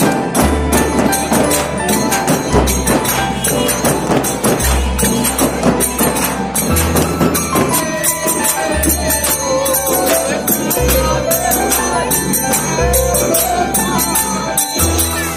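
Large hand-held frame drums beaten in a steady folk rhythm together with small brass hand cymbals (manjira), with voices singing along.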